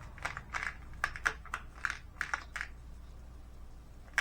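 8 mm synthetic crackle quartz round beads clicking against each other and the tabletop as they slide off a cut strand and scatter. A quick run of clicks over the first two and a half seconds, then a single click near the end.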